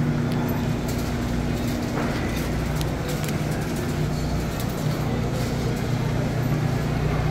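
Shopping cart rolling over a tiled supermarket floor, a steady rumble with light rattling, over the steady low hum of the store.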